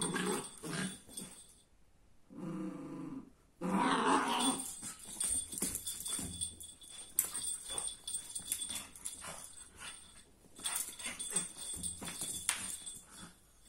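Beagle puppy growling in play while tugging and biting at its leash, with a drawn-out growl about two seconds in and scuffling and thrashing in its fabric bed throughout.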